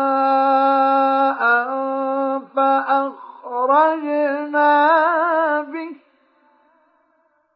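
A male Quran reciter chanting in the ornamented mujawwad style, drawing out the word "mā'an" in one long melismatic phrase with wavering pitch and a few brief breaks. The voice stops about six seconds in. The recording is dry, with no added echo.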